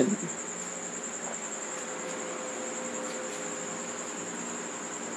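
A cricket trilling steadily at a high pitch, over a faint low hum.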